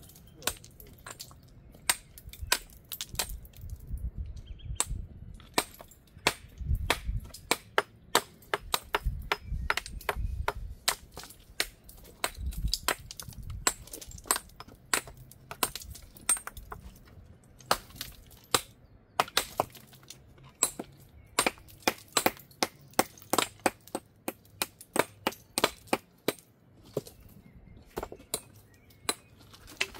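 Steel hammers striking and chipping stone, and stones clacking against each other as they are handled and set into a dry-stone wall. The sharp knocks come irregularly, often several a second.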